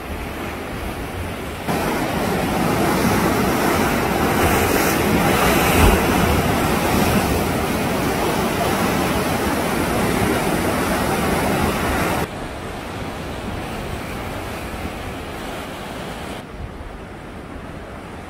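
Sea surf washing and breaking over rocks, a steady rushing noise mixed with wind on the microphone. It jumps louder about two seconds in and drops back abruptly about twelve seconds in, then again near the end.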